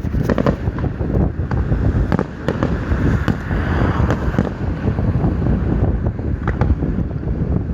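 Aerial firework shells bursting in quick, irregular succession, sharp bangs over a continuous low rumble, with a rush of hiss near the middle.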